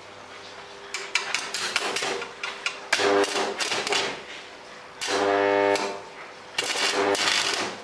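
Pieces of iron knocking together in a quick run of taps, then three short grating, ringing bursts of metal on metal about three, five and nearly seven seconds in.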